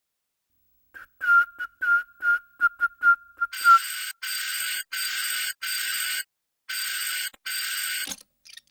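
Someone whistles a quick run of short notes. Then an electric doorbell buzzer sounds five times in half-second presses. Near the end there is a click as the door is opened.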